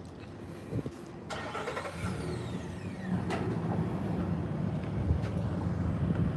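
A vehicle engine running close by, its low drone growing louder about two seconds in, with a few faint clicks.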